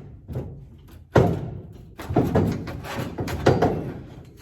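Several heavy thunks and knocks: the loudest about a second in, then more around two and three and a half seconds in.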